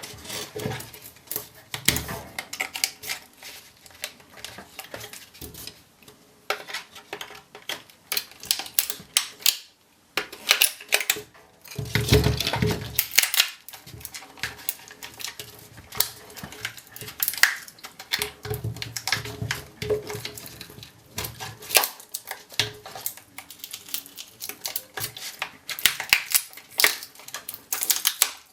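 Hand tools working a laptop battery pack apart: irregular clicks, clinks and scrapes of metal against plastic and cylindrical cells, with a louder spell of scraping about twelve seconds in.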